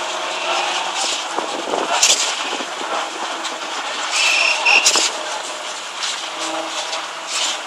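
Truck-mounted concrete boom pump running while concrete discharges from its hose, a steady mechanical hum with short bursts of higher noise about every two to three seconds.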